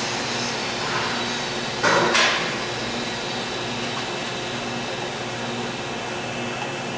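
Press brake running with a steady mechanical hum, and a loud knock about two seconds in.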